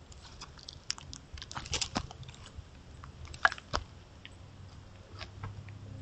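Roosevelt elk right at the camera making a quick run of sharp crunching and snapping clicks, thickest from about one and a half to four seconds in, then thinning out as the elk moves off.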